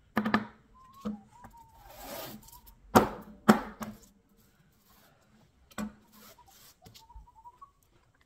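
A handful of sharp knocks and short scrapes as a metal putty knife and a painted board are handled on a cardboard-covered table. The two loudest knocks come close together about three seconds in. A faint wavering whistle sits underneath.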